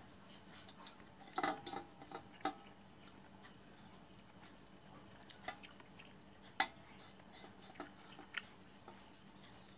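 Faint, scattered clicks and taps of fingers picking through rice and mutton bones on a metal plate while eating by hand, with soft chewing between them.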